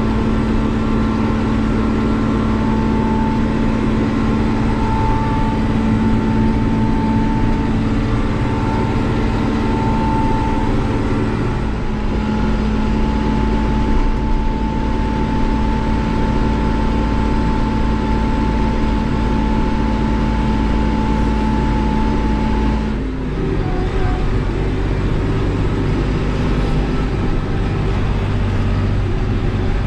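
Diesel engine of a small Deutz tractor running at a steady speed while being driven. About three quarters of the way through, the engine note drops and shifts to a different steady pitch.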